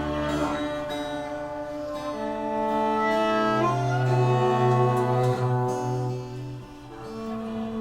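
Live instrumental music led by bowed strings: the viola holds long notes that shift every second or two over a low sustained bass line. It eases off briefly near the end.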